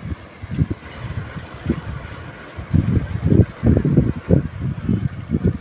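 Wind buffeting the microphone while riding along on a bicycle, a loud uneven low rumble in gusts that grow heavier about halfway through.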